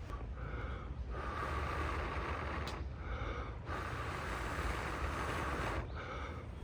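Honda Monkey 125's single-cylinder engine running on the move, a steady low drone under wind rushing on the microphone. The wind noise drops away briefly about a second in, again past three and a half seconds, and near six seconds.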